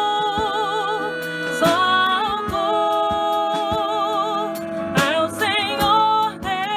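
Slow worship song performed live: a singer holding long notes with wide vibrato over sustained instrumental accompaniment.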